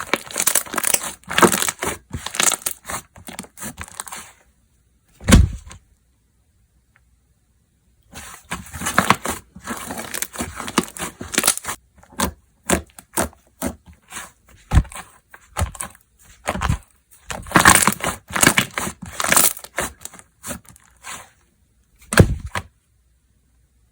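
Slime being squeezed and worked by hand, giving long spells of dense crackling clicks with short quiet pauses between. A single dull thump comes about five seconds in and another near the end.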